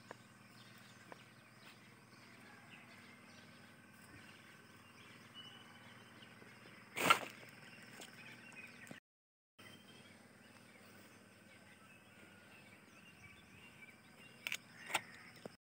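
Quiet outdoor ambience with a steady faint hum and faint bird chirps. A short sharp noise about seven seconds in is the loudest thing, with two briefer ones near the end, and the sound cuts out for a moment about nine seconds in.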